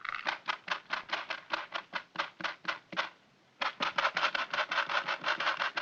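Small metal tacks ticking against a sheet of stiff paper as a magnetic force moves them: a quick, even run of clicks at about four a second, a short break, then a faster run at about seven a second.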